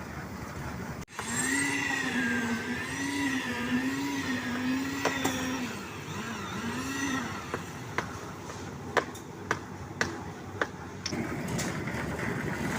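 A small motor's whine, wavering up and down in pitch for about six seconds, over the steady noise of concrete-pour machinery, then a string of about seven sharp knocks.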